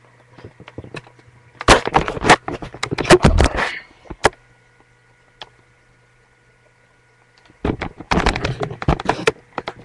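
Handling noise from a webcam being carried and grabbed: two flurries of rapid knocks and rustles, one about two seconds in and another near the end, over a low steady hum.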